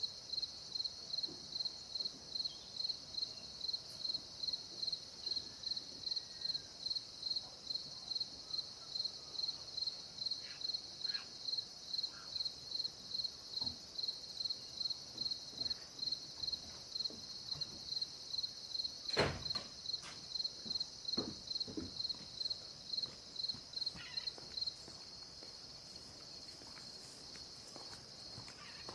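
Insects at dawn in a salt marsh: one chirping in even high-pitched pulses about twice a second over a steady high insect drone, the chirping stopping a few seconds before the end. A single sharp knock a little past the middle.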